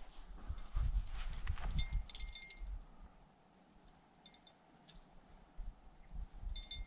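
Small fishing rod bell jingling in several short bursts, the way a bottom-fishing bell rings as the line moves. Low dull thuds come in the first couple of seconds.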